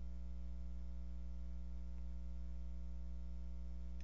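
Steady low electrical mains hum with its overtones, with nothing else over it.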